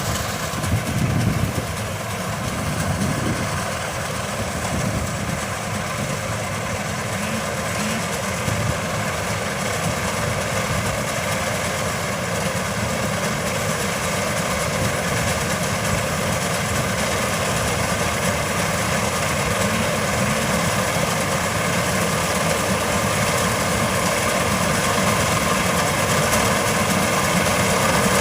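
Changfa CF805N combine harvester running, its engine and machinery giving a steady mechanical drone with a whine of several steady tones, gradually growing louder.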